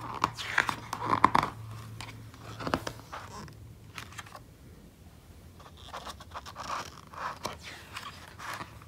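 Pages of a glossy paper booklet being turned and pressed flat by hand: quick papery rustles and scrapes, loudest in the first second and a half, with a few softer brushes of the hands over the page later.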